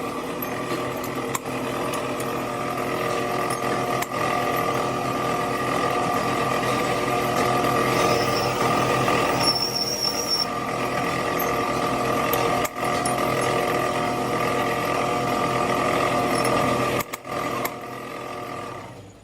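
A motor running steadily, with a strong whine over a lower hum. It cuts out in a few stutters near the end.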